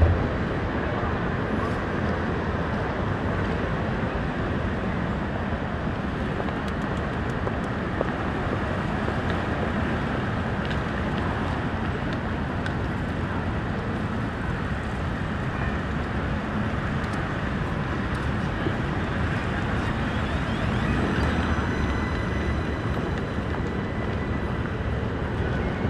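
Steady city street noise of traffic passing. A faint high whine comes in near the end.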